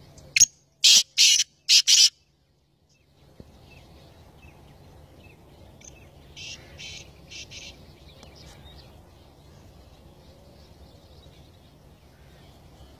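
Male black francolin calling: a loud call of five short notes in quick succession about half a second in, then a fainter call of four similar notes about six seconds in.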